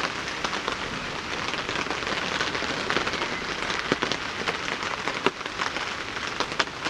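Steady rain with many irregular sharp taps of drops landing on a tarp shelter overhead.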